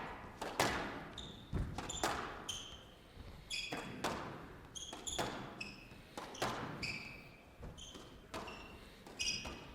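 A squash rally: the ball cracking off rackets and the court walls about once a second, with shoes squeaking on the court floor between shots, all echoing in a large hall.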